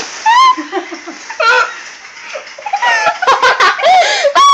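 High-pitched giggling and squealing laughter from girls. It comes in short bursts at first and runs almost without a break from about three seconds in.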